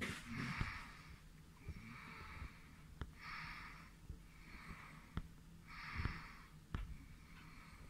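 A person breathing close to the microphone, soft hissing breaths in and out, one roughly every second, with a few faint clicks as the eyepiece is handled.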